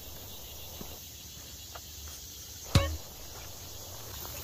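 A single sharp knock with a brief ringing tail about three seconds in, over faint steady background noise, with a couple of faint clicks before it.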